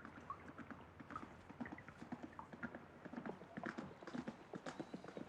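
Hoofbeats of a horse passing by: a faint, uneven clip-clop.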